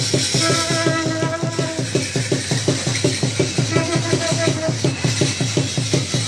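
Music with a fast, steady drum beat, about four to five strokes a second. Long held melodic notes sound over it at times.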